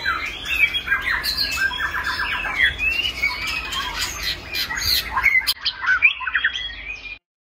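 White-rumped shama singing a varied, fast song of whistled phrases, a quick run of repeated notes and sharp clicking notes. The song stops abruptly near the end.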